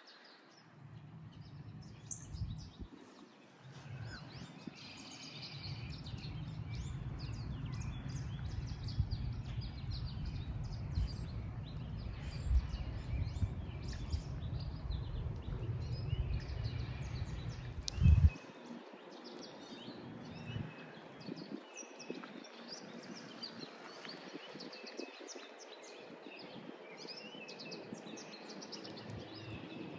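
A chorus of many songbirds singing and calling, with short chirps and trills overlapping throughout. A low rumble runs under the first half and cuts off with a thump about 18 seconds in.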